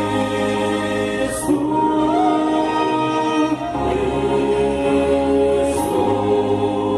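Church vocal group singing a worship song in harmony, holding long notes as a chord that shifts about every two seconds.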